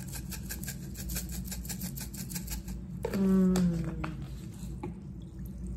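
Red chili pepper flakes shaken from a spice shaker: a rapid, even rattle of about eight to nine shakes a second that stops a little before halfway. About a second later comes a brief vocal sound, falling in pitch, and then a single click.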